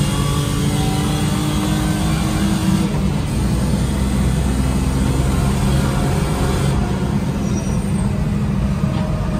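BMW E36's engine heard from inside the cabin, running at track speed on a hot lap, with the deep drone of road and tyre noise underneath. The engine note shifts a few seconds in and again near the end.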